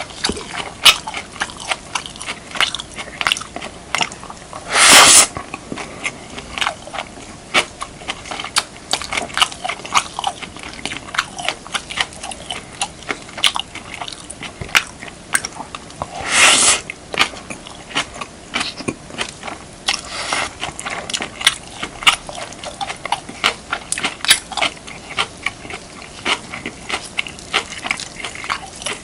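Close-miked chewing and biting of beef, kimchi and rice: a steady run of short, wet mouth clicks and crunches, with two louder bursts about half a second long, one about five seconds in and one about sixteen seconds in.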